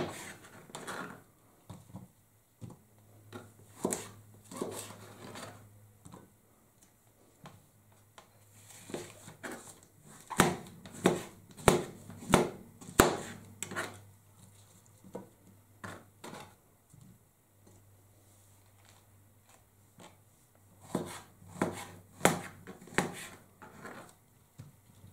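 Kitchen knife slicing mushrooms on a plastic cutting board: sharp knocks of the blade meeting the board, coming in quick runs of several strokes, busiest about ten seconds in and again near the end.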